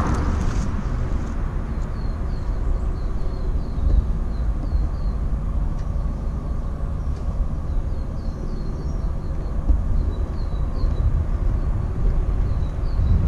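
Low, uneven rumble of wind buffeting the microphone, with small birds chirping faintly in several short runs of quick high notes.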